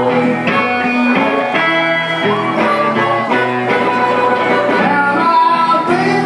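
Piedmont blues played live on guitar and blues harmonica: picked guitar under long, bending harmonica notes.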